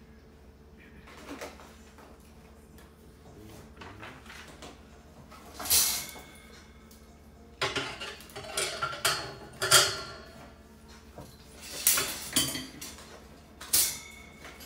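Wire-mesh baskets and the steel frame of a rolling storage cart clanking and rattling against each other as they are fitted together during assembly, in several spells of sharp metal knocks with a brief ringing after them.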